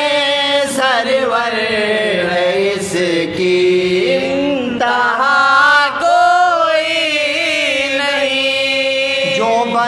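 Soz-khwani: male voices chanting a Shia mourning lament (soz) without instruments, drawn out in long held notes that slide slowly up and down.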